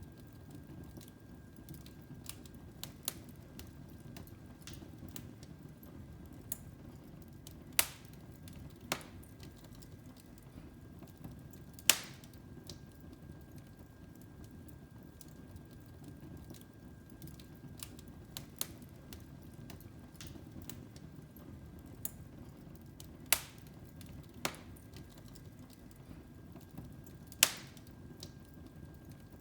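Wood fire crackling in a fireplace: irregular sharp pops and snaps, a few much louder than the rest, over a low steady rush from the flames.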